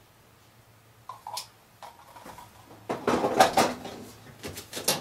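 Plastic clicking and rattling as batteries are fitted into the battery compartment of a Joolca Hottap portable gas water heater: a few scattered clicks, then a dense clatter of clicks and knocks over the last two seconds.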